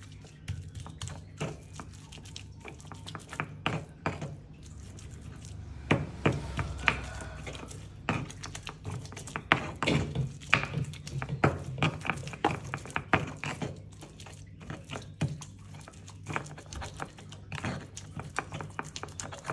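Stone pestle (ulekan) grinding and pounding chili sambal in a stone mortar (cobek): irregular scraping with sharp stone-on-stone clacks, some louder than others.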